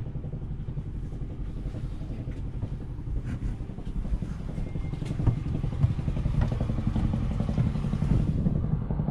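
A phinisi boat's on-board engine running steadily, a low even rumble, with a couple of sharp knocks about five and six seconds in.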